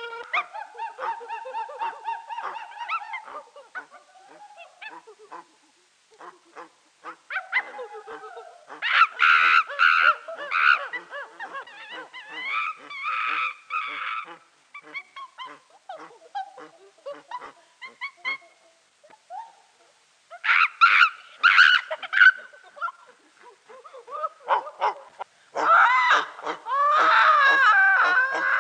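Several voices making wordless, bending vocal cries in four loud bursts, with scattered smaller cries between them. A held note dies away in the first few seconds.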